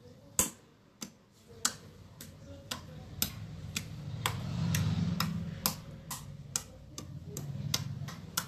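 Creamy pudding slime being pressed and folded by hand, popping and clicking as trapped air bursts, about two clicks a second over a soft squishing rumble.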